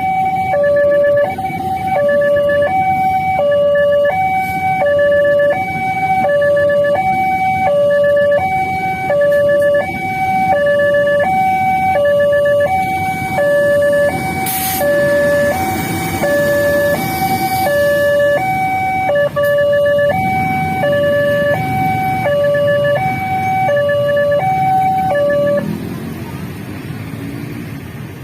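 Electronic warning alarm of a railway level crossing sounding a steady two-tone alternating signal while the gates are down for a train, over a low rumble. The alarm cuts off about 25 seconds in, leaving only the rumble.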